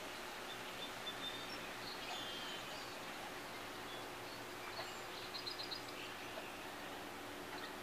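Faint outdoor background noise with a steady low hum, and small birds chirping now and then, including a quick run of about five high chirps about two-thirds of the way through.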